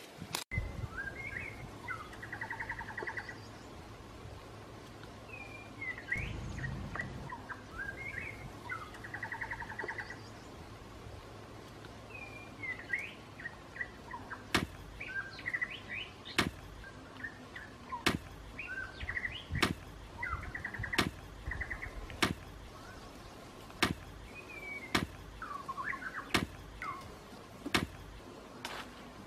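Birds chirping and trilling. From about halfway in, a bamboo pole is jabbed into the earth again and again, a sharp knock every second or two as it digs.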